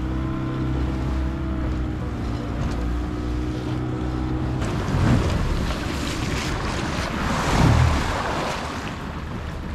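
Wind buffeting the microphone and water lapping on a small boat, with low thumps about five and eight seconds in. A steady low hum runs through the first half and cuts off abruptly.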